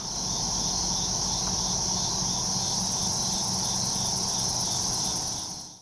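Chorus of crickets and other night insects: a steady high trill with a pulsing chirp beneath it, dropping away at the very end.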